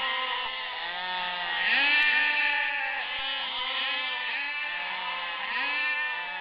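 A flock bleating, many animals calling at once so that the arching calls overlap without a break.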